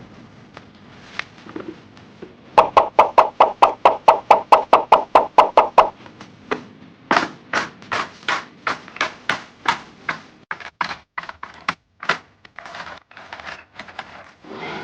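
Hard items clacking as they are set down or dropped into a container one after another: a fast, even run of sharp clacks, about four a second, then slower irregular clacks and a short rustle near the end.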